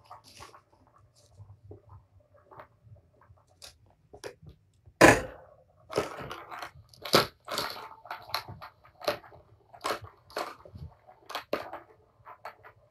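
Kittens batting at a plastic Tower of Tracks ball toy: irregular clattering knocks and rattles, a few faint ones at first, then louder and more frequent from about five seconds in.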